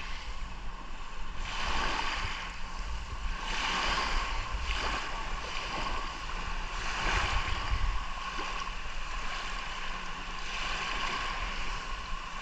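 Sea surf washing in, with wave after wave swelling and falling back every couple of seconds, over a faint steady hum.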